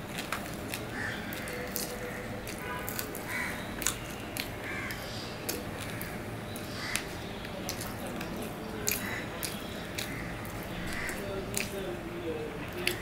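Close-up eating sounds of a person eating rice and fried fish by hand: a string of short sharp mouth clicks and smacks while chewing, with fingers working the food on a steel plate.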